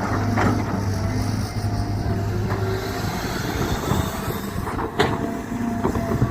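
Cat 320GC excavator's diesel engine running steadily while digging, with a few short knocks and one sharp knock about five seconds in.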